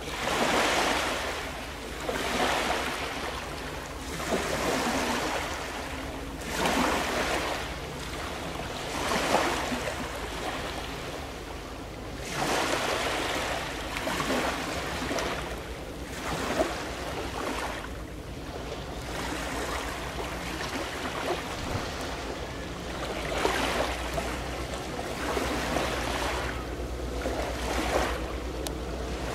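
Sea waves washing in and out on the shore, each surge swelling and fading every two to three seconds, over a steady low hum.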